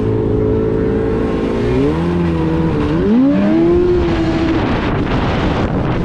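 Yamaha Apex snowmobile's four-stroke four-cylinder engine running under way. Its steady note drops and climbs again twice in the middle. Near the end it fades into a steady rush of wind and track noise.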